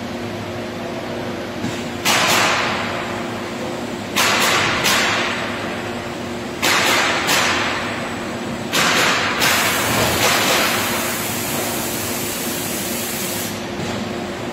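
Robotic panel-line machinery humming steadily, with about seven sharp hisses of released air, mostly in pairs, each fading within about half a second. About ten seconds in, a steady high hiss sets in and runs for about four seconds.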